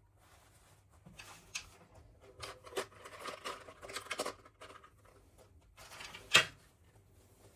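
Small objects being handled: rustling and clicking that come and go, with one sharp click about six seconds in.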